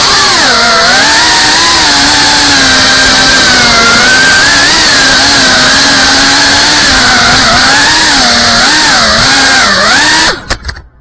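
FPV quadcopter's brushless motors and propellers whining, the pitch rising and falling with the throttle, heard close from on board. About ten seconds in they cut off with a few knocks as it lands.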